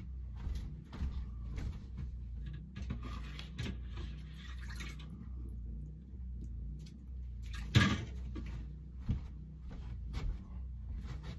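Scattered knocks, clicks and shuffles of a person moving about a small wooden-floored room and handling gear, with one sharp knock, the loudest, about eight seconds in, over a steady low hum.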